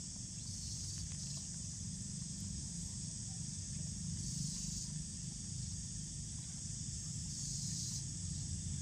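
Outdoor ambience: a steady high buzz of insects that swells about four seconds in and again near the end, over a low wind rumble on the microphone.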